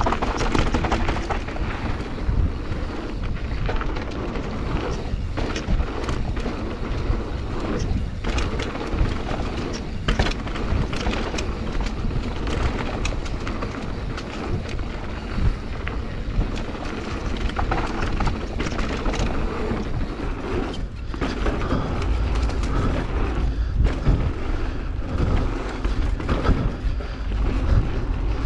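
Mountain bike descending a dry dirt trail at speed: wind rumbling on the action camera's microphone over tyre noise on the dirt, with the bike rattling and knocking over roots and bumps.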